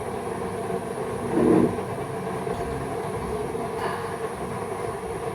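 Steady rumbling hum with a few faint steady tones while water heats on the kitchen stove. A short louder sound comes about one and a half seconds in.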